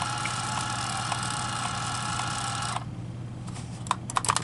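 Brother P-touch PT-H110 label maker printing: its tape-feed motor gives a steady whirring whine with faint regular ticks, then stops abruptly a little under three seconds in. A few sharp clicks follow near the end.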